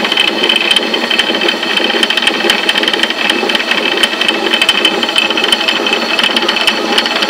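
Traditional water-powered stone flour mill (atta chakki) running, giving a steady, fast, dense rattle.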